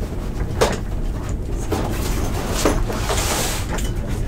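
Zippered padded nylon carrying case being opened and its lid folded back: a few soft knocks and fabric rustles, with a brief hiss about three seconds in.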